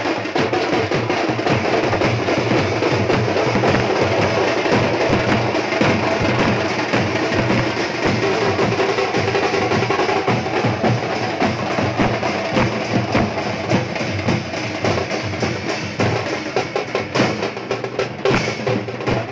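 Teenmaar band drumming: several stick-beaten, steel-shelled drums playing a fast, dense, driving beat.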